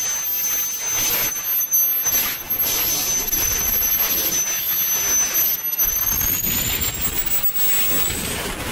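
Kingtech K-210 G4 model jet turbine running: a steady rushing jet noise with a high compressor whine. The whine holds steady at first, back at its running speed after an auto-restart, then climbs in pitch over the last few seconds as the turbine spools up.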